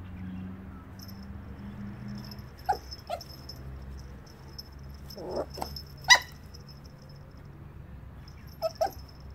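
Yorkshire terrier puppy giving short, sharp yips, about six in all, the loudest about six seconds in and two quick ones close together near the end.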